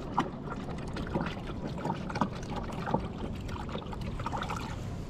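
Water splashing and trickling against the hull of a small fishing kayak as it moves, in irregular little splashes over a steady low rumble.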